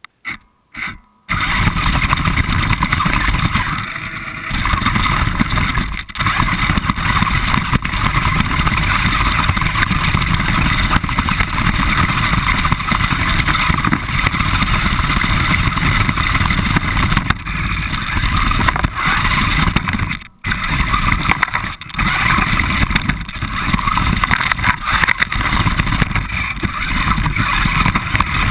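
Radio-controlled car driving, heard from a camera mounted on the car itself: a loud, steady mix of motor, drivetrain and ground noise. It starts about a second in after a couple of short clicks and cuts out briefly three times.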